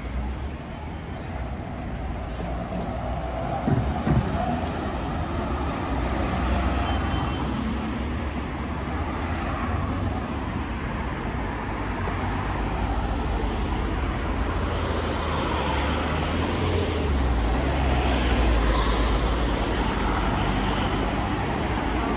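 Road traffic: cars and a bus passing, a steady rumble of engines and tyres, with two short knocks about four seconds in.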